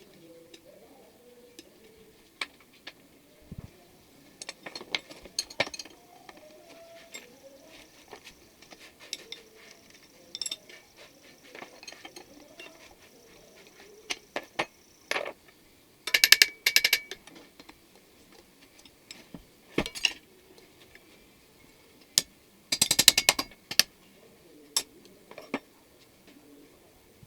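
Hand work on a Makita electric grinder: scattered sharp clicks and knocks of metal parts, with two loud bursts of rapid ratchet-like clicking about halfway and near the end.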